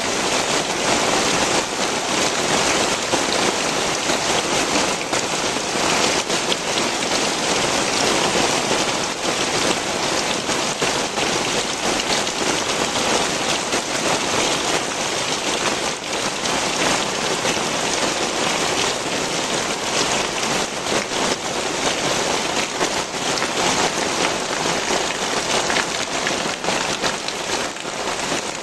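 Heavy rain pouring steadily, a dense even hiss with many close individual drops splashing onto surfaces.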